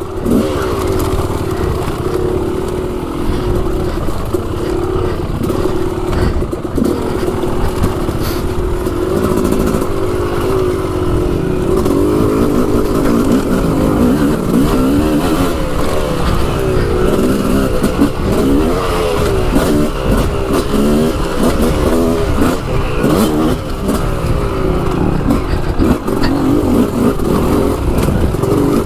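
Yamaha dirt bike engine running under way on a trail, its revs rising and falling as it is ridden, close to the mic.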